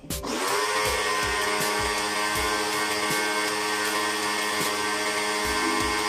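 Portable electric pressure washer starting up, its pitch settling within the first half second, then running steadily with a humming whine over a hiss.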